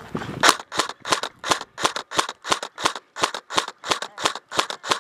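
Airsoft gun firing in steady semi-automatic shots, about three a second, a sharp snap with each shot, starting about half a second in and stopping just before the end.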